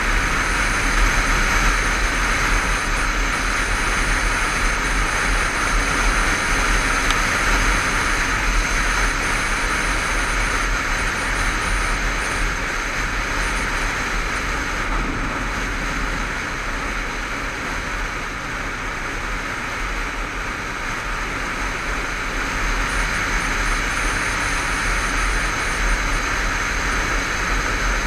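Steady wind rush and road noise from a Honda CBF500 motorcycle riding at road speed, easing a little past the middle.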